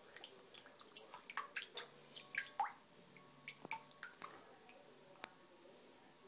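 Water sloshing and dripping in a sink as a phone in a rugged case is swished around by hand, with scattered small irregular splashes and drips. Near the end it is lifted out of the water.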